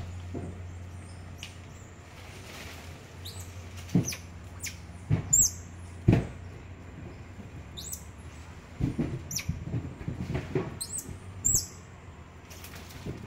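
Central American squirrel monkeys giving short, very high-pitched peeps, each a quick chirp that falls in pitch, scattered through. A few sharp knocks, the loudest sounds, come about four to six seconds in.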